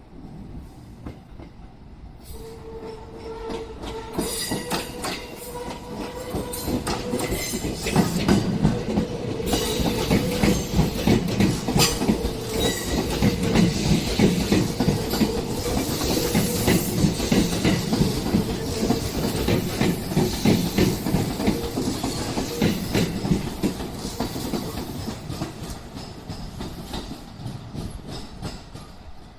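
Electric train running past on the tracks, with wheels clattering over rail joints and a steady whine. It builds up, is loudest through the middle, and fades near the end.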